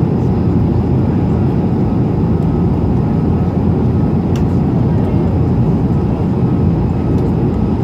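Steady cabin noise inside an Airbus A220-300 airliner on approach: a deep rush of airflow and the hum of its Pratt & Whitney PW1500G geared turbofan engines, heard from a window seat. A faint click comes about four and a half seconds in.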